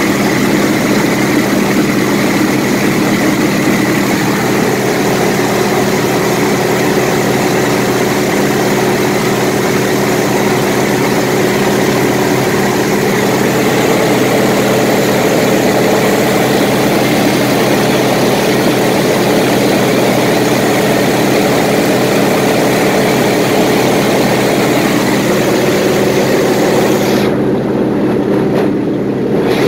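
Single-engine propeller airplane in cruise flight, heard from inside the canopied cockpit: a loud, steady engine and propeller drone with wind hiss over it. The high hiss drops away near the end.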